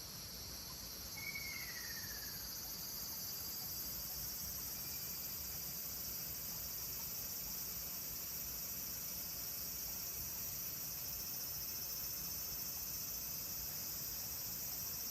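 Steady high-pitched insect chorus, with one falling whistled call of a ruddy kingfisher about a second in.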